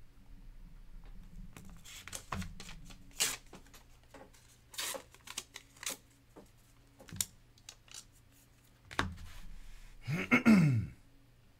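Hands handling Leaf Metal Football trading cards: a run of short snaps and rustles of cards being flicked and sorted. About ten seconds in comes the loudest sound, a brief rasping squeak that slides down in pitch.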